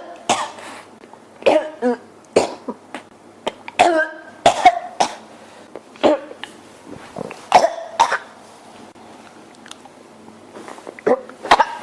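A person coughing over and over, with short sharp coughs, singly and in pairs, mixed with throat-clearing, some with a hoarse voiced edge. There is a pause of about three seconds, then two more coughs near the end. The coughing comes from an irritated, scratchy throat.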